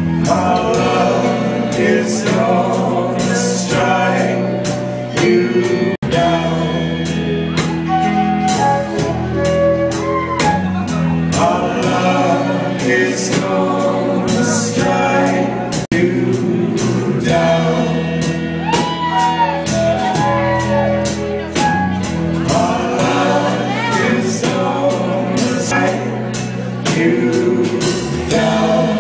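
Live rock band playing: electric guitars, bass guitar and drum kit with a steady beat.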